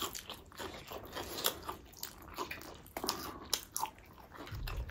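Close-up eating sounds: noodles being chewed and slurped, with many short wet clicks and smacks from the mouth.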